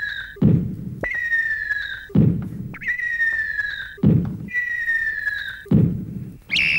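Cartoon sound effects of catapult shots: a falling whistle followed by a thud, over and over about every second and a half. Near the end a whistle is blown, signalling the end of the battle.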